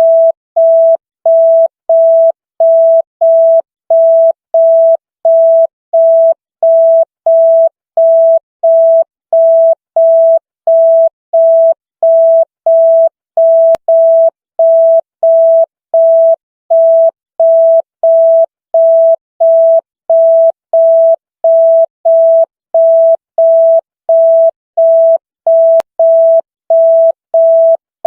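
Repeating electronic beep: one steady mid-pitched tone switching on and off evenly, about one and a half times a second.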